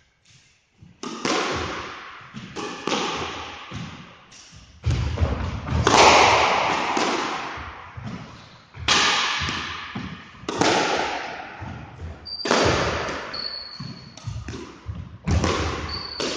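Squash ball being struck by rackets and smacking off the court walls during a rally. There are a dozen or so sharp hits, one every second or two, each followed by a long echo in the enclosed court. Short high squeaks, likely shoes on the wooden floor, come near the end.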